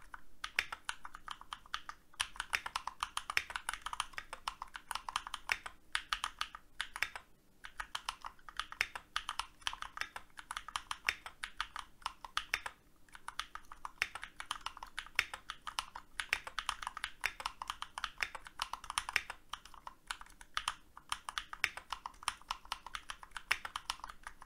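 Typing on a computer keyboard: fast runs of key clicks broken by a few brief pauses.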